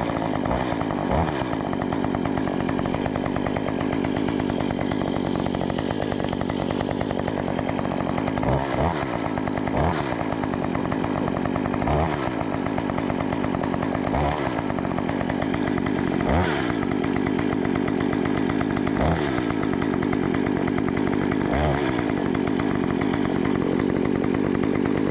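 STIHL MS 194 TC top-handle two-stroke chainsaw engine running steadily. From about eight seconds in, its pitch briefly sweeps down, ending in a low thud, roughly every two seconds.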